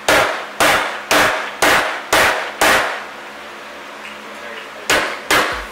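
Hammer blows on a go-kart's front spindle, driving it down to reduce excessive camber: six strikes about two a second, a pause, then two more near the end.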